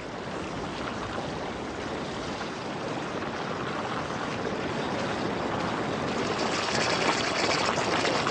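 Volcanic hot springs bubbling and gushing out of salt and sulfur chimneys, the water heated by magma. A steady watery rush that slowly grows louder and turns sputtery near the end.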